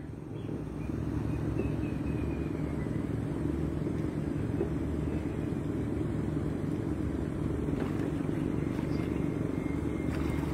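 A small boat's motor running steadily with an even low drone.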